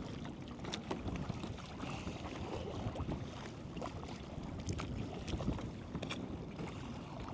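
Kayak paddle strokes: the blade dipping and splashing, with water dripping and lapping in small irregular splashes over low wind noise.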